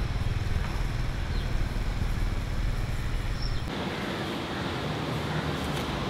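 Steady background noise with a low rumble. About two-thirds of the way through it changes abruptly: the rumble drops away and a brighter hiss takes over.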